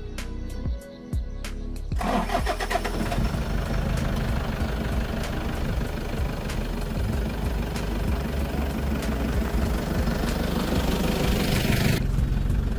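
Toyota Tiger's 3.0 L D-4D four-cylinder turbodiesel starting about two seconds in and then idling steadily. Near the end the sound drops to a quieter level.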